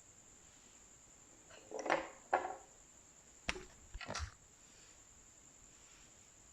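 Slime and makeup being handled: two short crackly squishes about two seconds in, then a sharp click and another short squish, over a faint steady high-pitched hiss.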